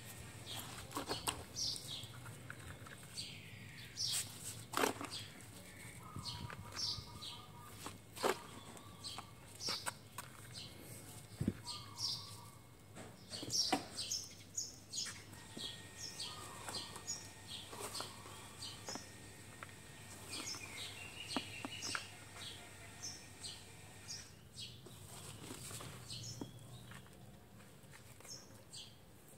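Birds chirping repeatedly in short high notes, over scattered crunches and scrapes of coarse, chunky potting mix being scooped and pressed into a plastic pot.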